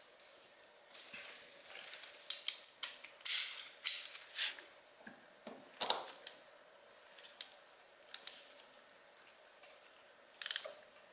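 Socket ratchet clicking in short runs, with scattered metal clicks and clinks of tools, loosening a plug on a motorcycle engine during an oil change.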